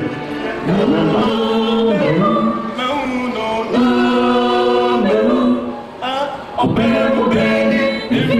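Voices singing a song in long held notes, with a short lull about six seconds in.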